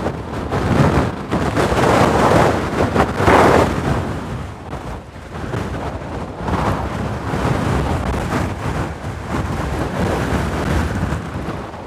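Strong wind buffeting the microphone in gusts, a loud rumbling noise that is strongest in the first few seconds, dips for a moment about five seconds in, and then keeps gusting more evenly.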